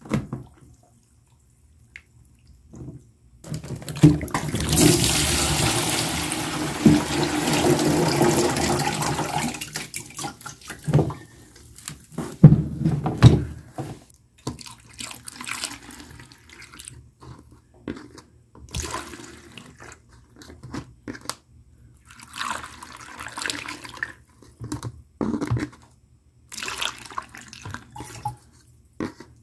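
Dirty rinse water pouring out of a lead-acid car battery's cells into a plastic tub: a steady pour starting about four seconds in and lasting some six seconds, then splashes, gurgles and knocks as the battery is tipped and handled. Near the end, distilled water splashes briefly from a plastic jug through a funnel into the cells. The cells are being flushed of sediment with distilled water.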